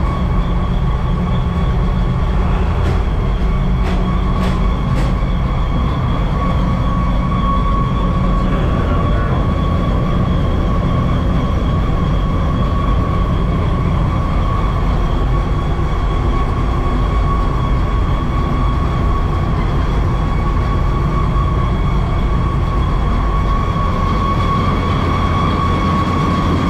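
John Deere combine running with its corn head engaged, heard from inside the cab: a steady heavy drone of engine and machinery with a steady high whine over it.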